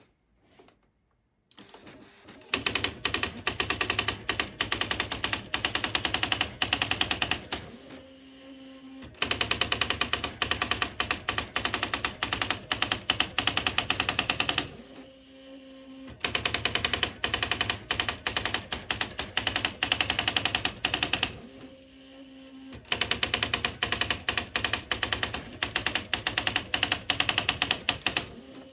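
Smith Corona SD 680 typewriter typing in fast, even runs of key strikes, about four runs of five or six seconds each. Between runs there are short pauses with a steady low hum.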